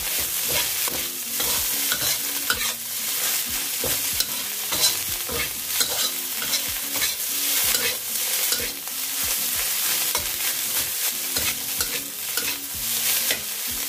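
Fried rice sizzling in a wok while a metal spatula stirs and tosses it, the spatula scraping and tapping against the pan over and over.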